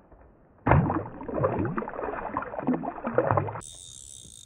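Shallow water splashing and sloshing irregularly for about three seconds, starting suddenly, as a large rainbow trout held at the water's edge thrashes. Near the end it cuts off and a steady, fainter high hiss follows.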